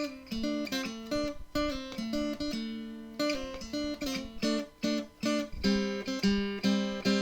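Intro music: an acoustic guitar picking and strumming a melody of short plucked notes, several a second.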